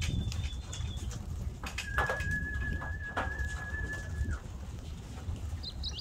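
Racing pigeons at the loft's landing board, cooing with a few wing flaps. A steady high tone is held for about two seconds in the middle.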